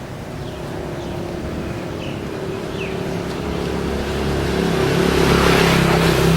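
A motor vehicle's engine running steadily and growing louder over the last few seconds as it approaches.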